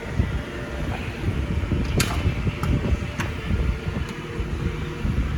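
A few sharp clicks of metal wrenches knocking together in a toolbox drawer, over a steady low rumble.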